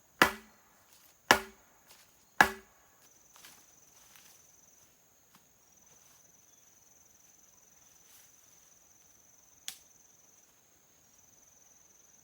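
Three heavy chopping blows about a second apart, each with a short woody ring, then they stop. A steady high-pitched insect trill runs on behind, with one sharp click near the end.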